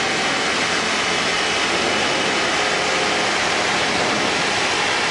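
Steady cockpit noise of a Tecnam P92 Eaglet light aircraft in climbing flight: the engine at climb power and the airflow blend into a constant, even rushing hiss.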